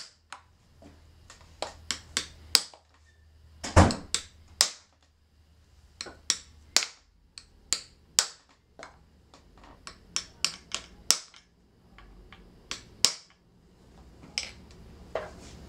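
Light taps on a duct-tape-wrapped tamp, driving a bicycle fork's crown race down onto the steerer tube to seat it against the fork crown. The taps come at an uneven pace, several a second in spells, with one heavier knock about four seconds in.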